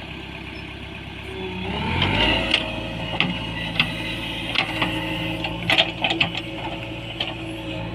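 JCB 3DX backhoe loader's diesel engine running, revving up about two seconds in and then holding steady, with sharp knocks from the working machine scattered throughout.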